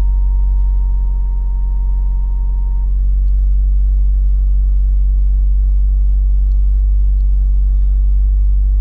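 Toyota Celica GT-Four ST205's 3S-GTE turbo four-cylinder idling steadily, with a thin high electric-sounding whine over it that stops about three seconds in. The whine sets in each time the throttle is blipped, and the owner doesn't think it is meant to be there.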